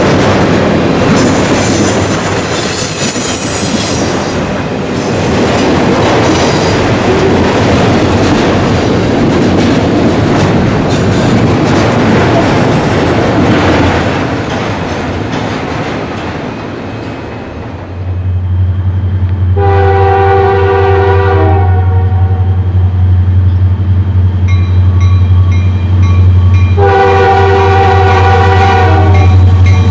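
A freight train rolling past with wheel-and-rail clatter and a brief high wheel squeal, then fading away. A diesel locomotive then comes in with a steady low engine drone and sounds its multi-chime air horn in two long blasts, several seconds apart.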